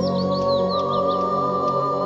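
Slow new-age relaxation music of long held tones, with a bird chirping over it: a quick run of short, high, downward chirps through the first second or so.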